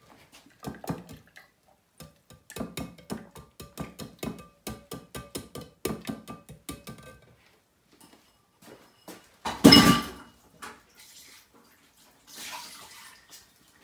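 Quick series of metallic taps of a utensil against a wire-mesh kitchen sieve over a glass jug, with a faint ringing. About ten seconds in comes one louder clatter.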